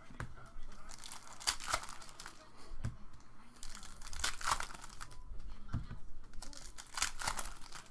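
Trading-card pack wrappers being torn open and crinkled by hand, in short rustling bursts every few seconds.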